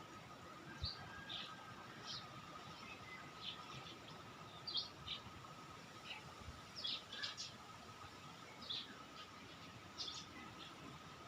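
Small songbirds chirping, many short high chirps in irregular clusters over a faint steady hum.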